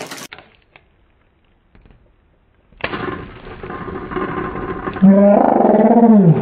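Slowed-down sound of a balloon stress ball full of water beads bursting open: a sudden rush of noise about three seconds in. From about five seconds a deep, drawn-out voice, slowed into a roar, falls in pitch near the end.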